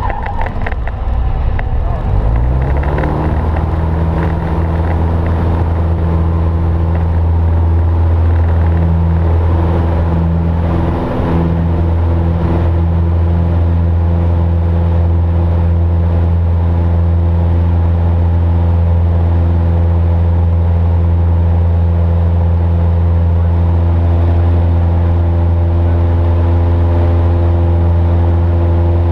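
Single-engine light aircraft's piston engine and propeller heard from inside the cockpit, rising in pitch over the first few seconds as power comes up for takeoff, then a loud, steady drone through the climb-out.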